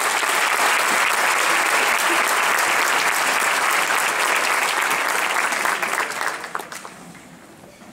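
Audience applauding steadily, then dying away from about six seconds in.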